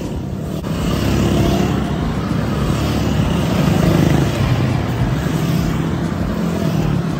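Royal Enfield motorcycles in a group ride passing by one after another, engines running, growing loudest about four seconds in as the nearest bikes go past.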